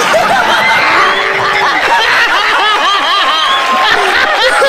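A group of people laughing loudly together, many voices overlapping in bursts of laughter.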